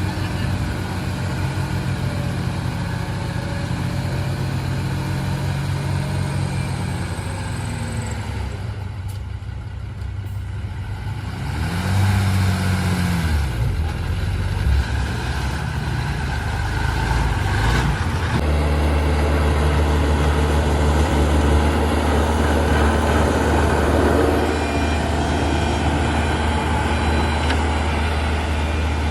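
Heavy diesel engine of a truck or bulldozer running. It dips quieter, revs up and down about twelve seconds in, then settles into a louder steady drone from about eighteen seconds on.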